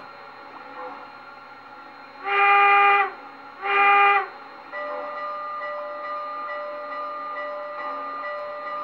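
Sound system of an MTH O-scale Allegheny model steam locomotive giving two loud, short steam-whistle blasts, then a quieter steady tone that holds on.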